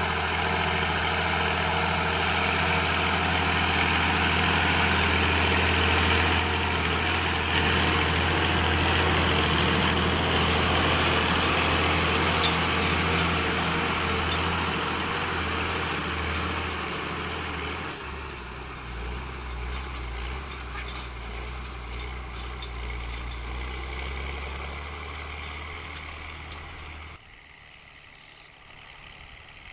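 Fiatagri 100/90 DT tractor's six-cylinder diesel engine working steadily under load while pulling a disc harrow. The engine sound is loud at first, drops somewhat about two-thirds of the way in, and falls away sharply near the end.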